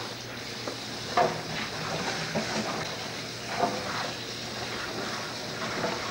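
Steady hiss of water running into a kitchen sink, with a few light knocks and clinks of things being handled in it.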